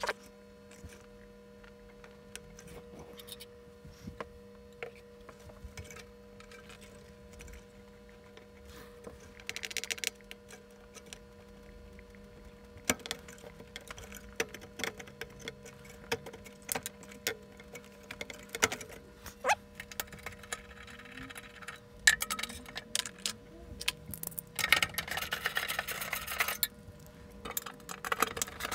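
Scattered small clicks, taps and light metallic rattles of a large circuit board being worked loose from its plug-in pins on a metal chassis, with denser rustling and clattering of handling in the last few seconds, over a faint steady hum.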